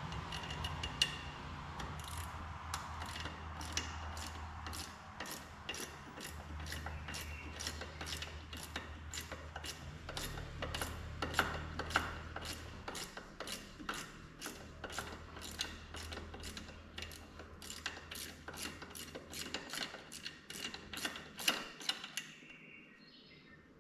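Socket ratchet on a 3/8 inch deep well socket clicking steadily, about two clicks a second, as a nut is undone from a primary clutch weight bolt. The clicking stops near the end.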